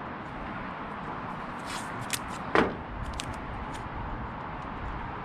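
Masking tape being handled while taping off chrome trim: a few faint clicks and one short, sharp rip about halfway through, over a steady background hiss.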